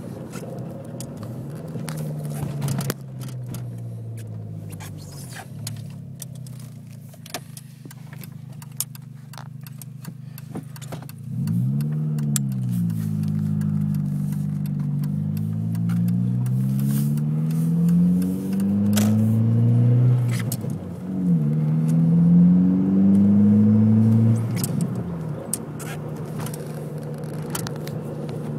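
2003 Volkswagen GTI's turbocharged 1.8-litre four-cylinder running steadily with scattered sharp clicks for about ten seconds. Its revs then climb slowly and fall back twice before it settles to a steady note again.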